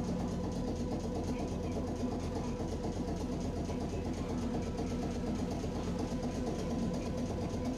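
Tosaden streetcar's machinery running steadily: an even hum with a held tone and a fine rapid rattle.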